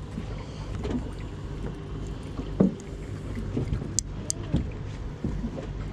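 Boat engine running steadily at idle, a low hum, with scattered small knocks and two sharp clicks about four seconds in.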